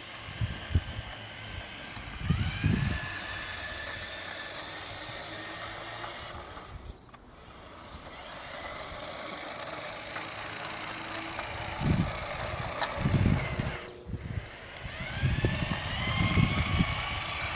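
G scale model locomotive's electric motor whining as it runs along the track, the pitch rising as it speeds up about two seconds in and again near the end. A few low thumps come and go.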